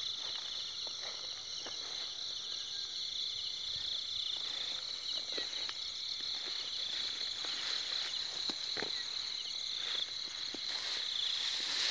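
Steady high-pitched chorus of night insects with a fast pulsing trill. Over it come scattered snaps and rustles of footsteps pushing through undergrowth.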